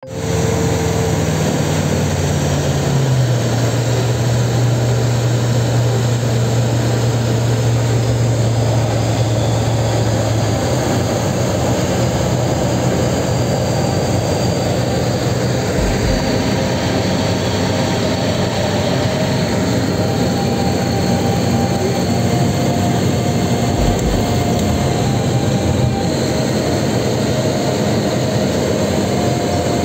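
Esqual VM1 light aircraft heard from inside the cockpit: the engine's steady drone drops in pitch about three seconds in as it is throttled back, then fades out about ten seconds in as the engine is shut down in flight. After that only the loud, even rush of airflow over the gliding airframe remains, with the propeller stopped.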